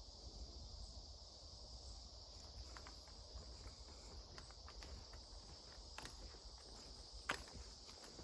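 Faint outdoor forest ambience: a steady high-pitched insect drone, with scattered light clicks and steps starting a few seconds in. The loudest is a single sharp click about seven seconds in.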